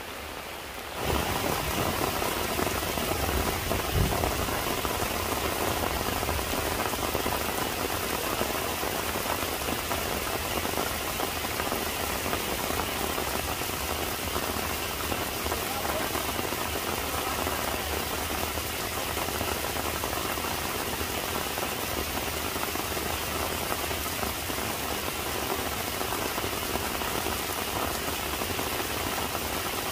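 Steady rain falling, with one low thump about four seconds in; the sound jumps up in level about a second in.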